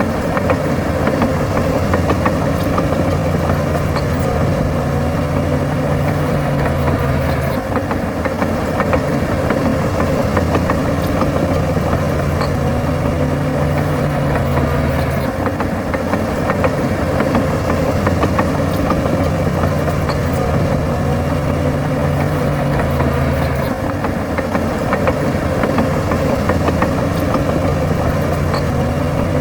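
Diesel engine of heavy earthmoving machinery running, its note rising and falling in a repeating cycle about every eight seconds as the load changes, with a few faint metallic clicks.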